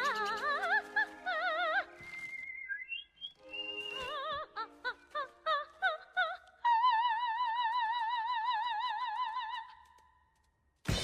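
Operatic high soprano singing with wide vibrato: quick runs of trilled notes, then one long high note held for about three seconds that fades away near the end.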